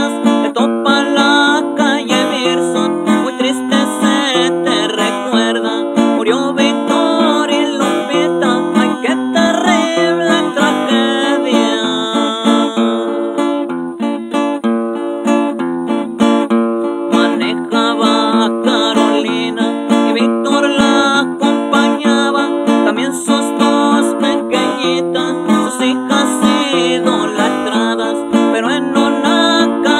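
A man singing while strumming and picking an acoustic guitar.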